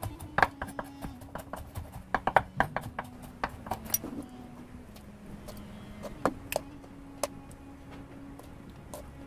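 Kitchen knife chopping peanuts on a wooden cutting board: quick, irregular knocks of the blade on the board for the first four seconds or so. After that come a few separate sharp clinks as metal tongs set pieces of fried mackerel onto a porcelain plate.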